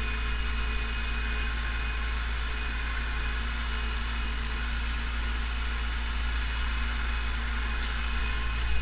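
Pronar 82SA tractor's diesel engine running steadily in the field as heard inside the cab, pulling a seedbed cultivator with little strain. It is a constant low drone with no change in pitch.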